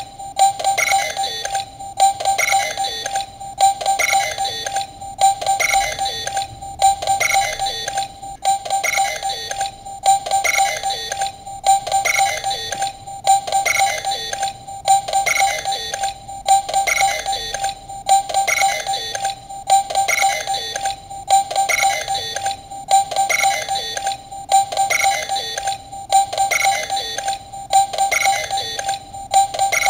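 Bandai DX Mega Ulorder toy transformation bracelet playing its electronic standby sound: a short beeping, musical phrase repeated over and over in an even, unbroken loop.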